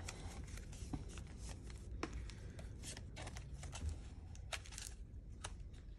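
Paper banknotes and cash envelopes being handled: scattered soft rustles and small ticks, with a steady low rumble of wind underneath.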